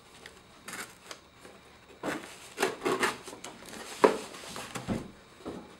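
Cardboard phone-box packaging being handled and opened: a series of short rubs and scrapes, with a sharp tap about four seconds in.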